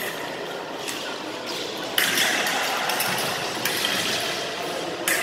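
Foil fencing bout: footwork on the hall floor and a few sharp knocks over general hall noise, which grows louder about two seconds in.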